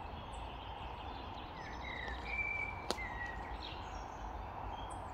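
Birds chirping with short gliding calls over a steady low outdoor rumble, with one sharp click about three seconds in.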